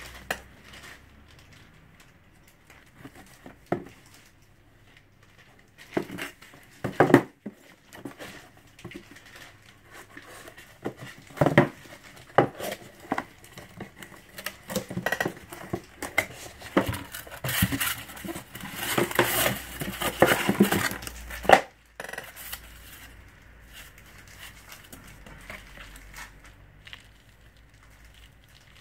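Cardboard shipping box being handled and opened: scattered knocks and scrapes, then several seconds of dense crinkling and tearing of the packaging.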